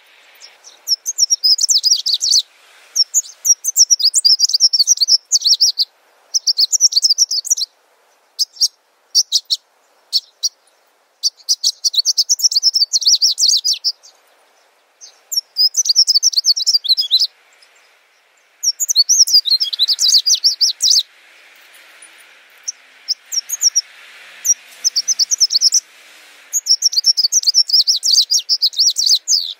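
Small birds chirping in rapid bursts of high, twittering notes, phrase after phrase with short pauses between and a few scattered single chirps.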